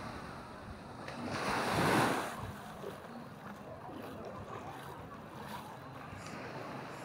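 Sea waves on a beach: one wave swells and breaks about two seconds in, then a steady wash of surf.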